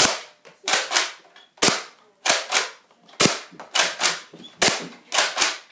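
Sharp plastic clacks of a modded Nerf Recon blaster being worked over and over, about a dozen in quick pairs.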